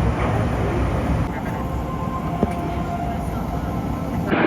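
Jet airliner engine noise: a steady, loud rumble with a faint whine above it. The sound changes abruptly near the end.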